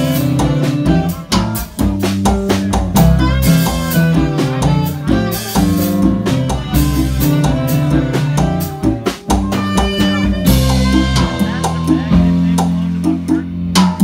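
Live band playing: drum kit, electric guitar and bass notes, with saxophone and keyboard. The drumming thins out about ten seconds in, leaving held low notes.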